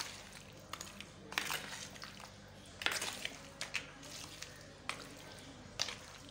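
Chicken pieces in a thick yogurt marinade being mixed in a plastic bowl: irregular wet squelches and slaps, with a few sharp clicks.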